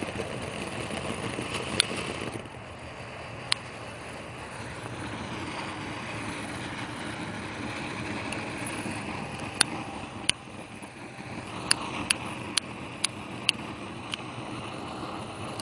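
A lighter being clicked a dozen or so times at irregular intervals without catching: it has run out of fuel. The clicks sound over a steady background hiss.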